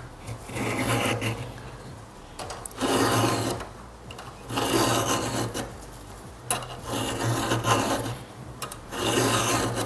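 A 5.5 mm round file rasping across the cutter tooth of a 3/8" saw chain in a filing guide, sharpening the tooth's cutting edge. It makes about five separate forward strokes, each about a second long and roughly two seconds apart.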